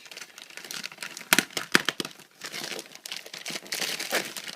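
Parcel packaging crinkling and tearing as it is opened by hand, with a few sharp crackles about a second and a half in.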